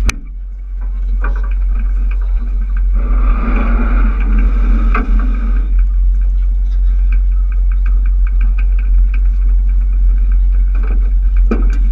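Steady deep rumble aboard a motorboat underway, with a short click at the very start.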